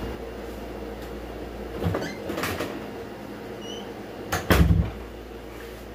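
A door being shut: a few short knocks and rubbing sounds about two seconds in, then a heavy thud about four and a half seconds in.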